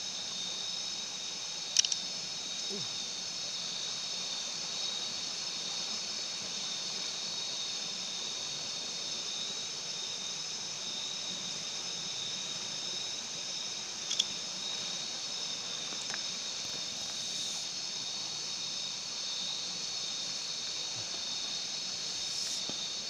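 Steady, high-pitched chorus of night insects over faint running river water. Two short sharp clicks break through, about two seconds in and again near the middle.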